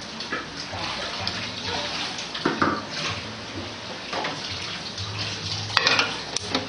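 Steady rushing, hiss-like background noise with a few light knocks. A sharp metallic clank near the end as a large aluminium wok is set down on a gas stove's burner grate.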